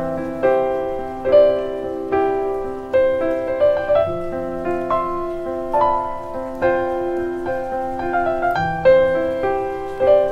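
New-age solo piano music: single notes and chords struck one after another and left to ring out.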